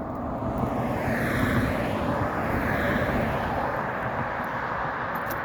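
A vehicle passing by, its noise swelling about a second in and slowly fading away.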